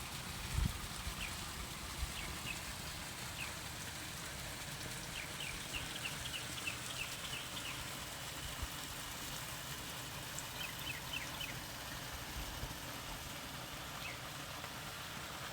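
A garden fountain trickling and splashing steadily, with birds chirping in short runs of quick high notes, about five to seven seconds in and again around eleven seconds.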